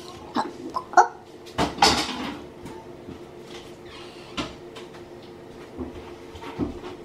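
Kitchen handling noises: a few sharp knocks and clicks, with a louder, longer clatter about two seconds in, over a faint steady hum.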